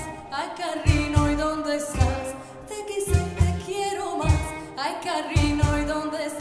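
Woman singing an Arabic song live with vibrato, backed by an oud and cello ensemble with a regular low beat.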